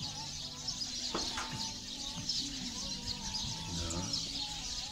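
Birds chirping and calling, over a steady high-pitched shimmering hiss.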